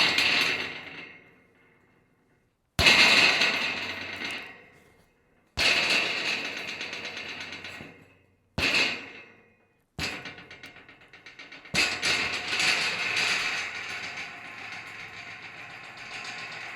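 Metal rattling in a series of separate shakes, six in all. Each starts sharply and dies away over a second or two. Around ten seconds in comes a quick run of small clattering ticks, and the last rattle runs on for about five seconds.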